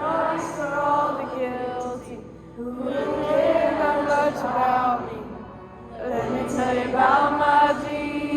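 Music with singing voices, sung in phrases of a few seconds with held notes.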